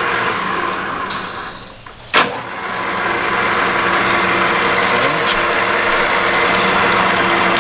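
ENCO 13" x 40" geared-head lathe running under its 2 hp motor, winding down about one and a half seconds in, then a sharp clunk a little after two seconds as it is switched over, and the headstock spins back up and runs steadily: the spindle being changed from forward to reverse.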